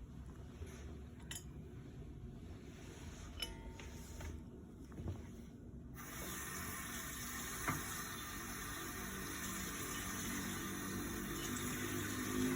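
Water running, starting suddenly about six seconds in and continuing steadily; before that, a faint low rumble with a few light clicks.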